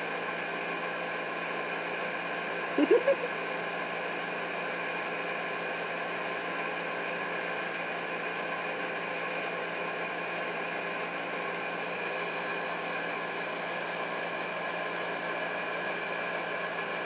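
A steady mechanical hum with many fixed pitches, even throughout. About three seconds in comes a short vocal sound.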